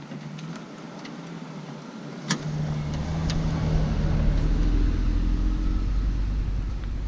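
A motor vehicle's engine rumble comes in about two seconds in and grows louder, after a few sharp clicks.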